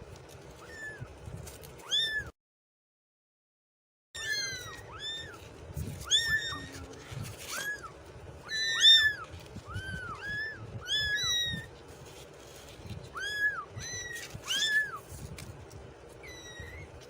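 Kitten meowing over and over in short, high-pitched calls that rise and fall, about one or two a second. The sound cuts out completely for about two seconds near the start, then the meowing resumes.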